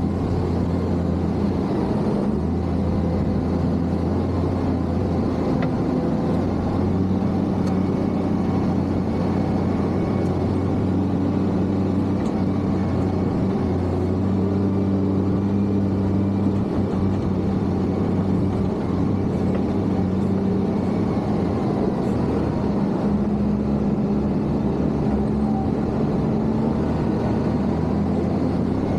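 Diesel engine of a Case motor grader running steadily under working load, a constant low drone with small shifts in engine pitch.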